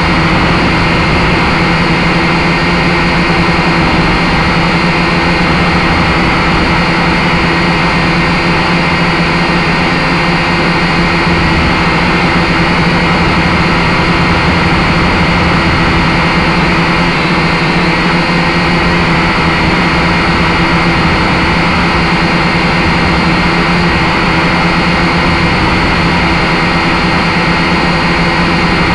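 Syma X5C quadcopter's four brushed motors and propellers whirring steadily at a constant pitch, heard up close through the drone's onboard camera microphone.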